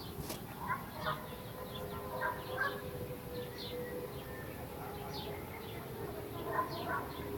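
An unexplained steady droning tone, the so-called strange sound in the sky, with birds chirping over it.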